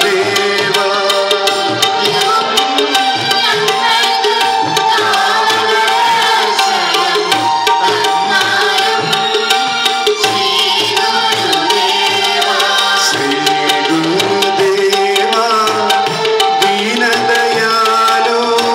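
Devotional bhajan music: voices singing a melodic line over a steady tabla rhythm, with a sustained accompanying tone.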